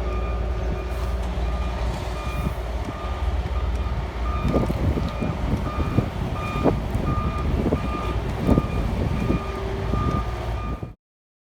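A vehicle's reversing alarm beeping steadily, about twice a second, over a loud low rumble, with several thumps in the second half; the sound cuts off suddenly near the end.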